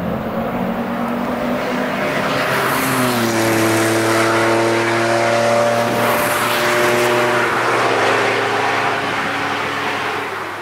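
Car engine running at steady high revs as the car drives through a bend on a race track. The engine note steps down in pitch about three seconds in, then holds steady.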